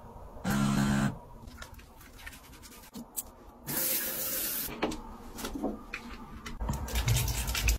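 An automatic foam soap dispenser's pump motor whirs briefly, about half a second in. About four seconds in, water runs from a swivel bathroom faucet for about a second. Light clicks and knocks follow, from a cabinet door and a plastic bottle being handled.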